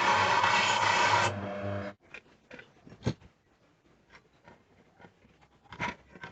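Homemade drill press driven by a washing-machine motor and gearbox running with a rasping, grinding drill bit, cutting off about a second and a half in and gone by two seconds. Then a few light knocks, two of them louder.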